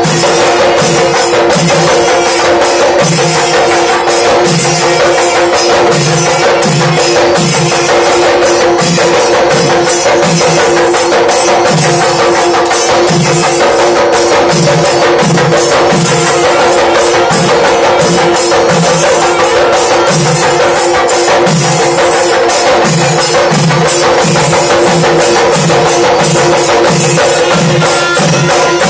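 Chenda melam: a troupe of Kerala chenda drums beaten with sticks in a fast, dense rhythm, with deeper drum strokes pulsing underneath. A kuzhal pipe holds a steady tone above the drumming.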